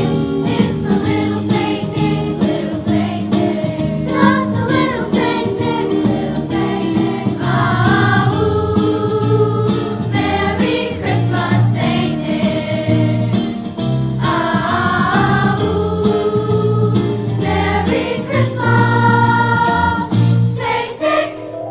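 Middle school choir singing a Christmas song with instrumental accompaniment.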